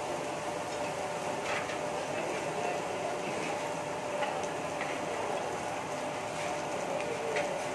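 Steady restaurant background noise, a hiss with a constant hum, with a few light clicks of cutlery on a plate scattered through it.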